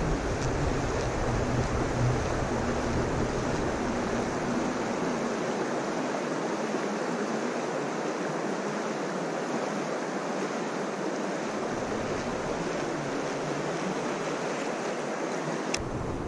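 River current rushing over a shallow rocky riffle: a steady, even rush of water. Wind rumbles on the microphone for the first few seconds.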